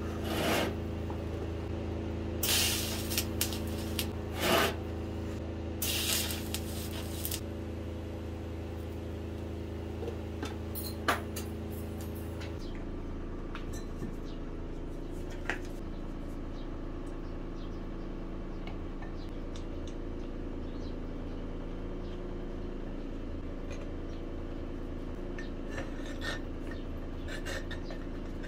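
Short bursts of hissing from TIG welding on a cast clutch pulley over a steady low hum. About halfway through the sound changes to the hum with a few light metal clicks of a wrench working on a pulley mounted on a transmission.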